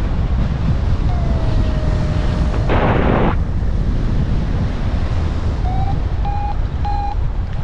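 Steady wind rushing over the microphone in paraglider flight, with a louder gust of rush about three seconds in. A paragliding variometer sounds over it: one long tone sliding slowly down in pitch, then three short beeps near the end, the last two slightly higher.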